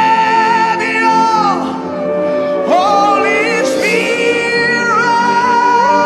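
Gospel worship song: a voice sings long held notes that slide up and down between pitches, over sustained chords.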